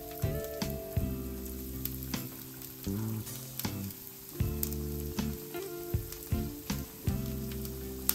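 Breadcrumb-coated rolls frying in hot oil in a frying pan: a steady sizzle with frequent sharp crackles as more rolls are laid into the oil, over background music.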